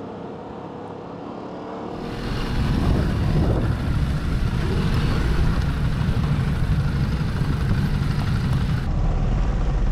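Motorcycle riding along, its engine rumble mixed with heavy wind noise on the microphone; the sound grows much louder and fuller about two seconds in and then holds steady.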